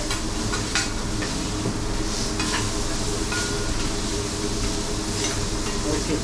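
Shrimp sizzling on a hot teppanyaki griddle, with scattered short clicks of metal spatulas scraping and tapping on the steel plate.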